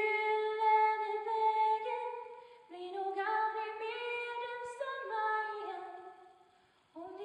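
A woman singing a slow song solo and unaccompanied, in two long held phrases with a short breath between them about two and a half seconds in; the second phrase fades out shortly before the end.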